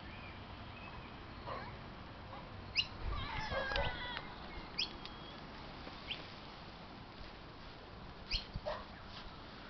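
Birds chirping: a few short, sharp calls spaced a couple of seconds apart, and a longer wavering call a little over three seconds in.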